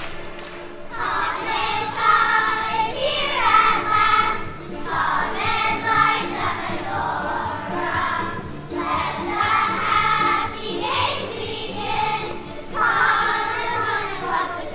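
Children singing a song together in chorus, with musical accompaniment.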